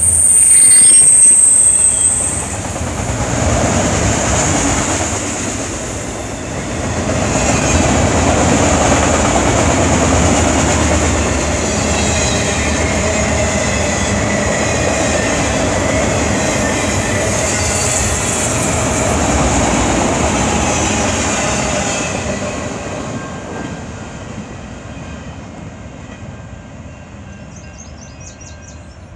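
Freight train of autorack cars rolling past, steel wheels running on the rails, with a high wheel squeal in the first couple of seconds. The sound fades over the last several seconds as the end of the train passes and moves away.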